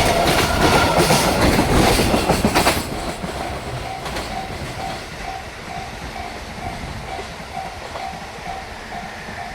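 Koki container wagons of a long freight train clattering heavily over rail joints, the clatter cutting off about three seconds in as the tail of the train passes. After that, the level-crossing warning bell keeps ringing in an even, repeating rhythm.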